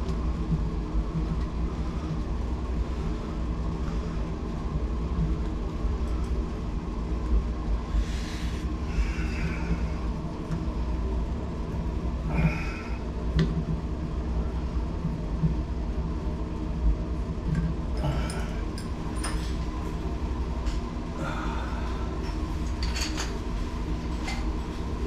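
A steady low droning hum runs throughout, with scattered metal clicks and scrapes as a hex key and hands work the lever handle off a Moen Posi-Temp shower valve.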